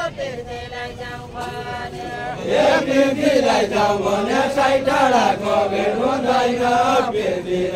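Unaccompanied Deuda folk singing from a circle of singers: a slow, chant-like melody sung together by several voices. The group comes in louder about two and a half seconds in.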